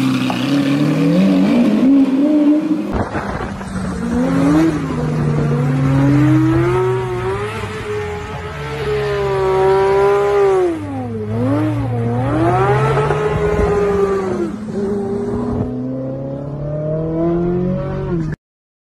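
High-performance car engines revving hard, the pitch climbing and dropping again and again as the cars are driven and drifted, with some tyre squeal. The sound cuts off abruptly shortly before the end.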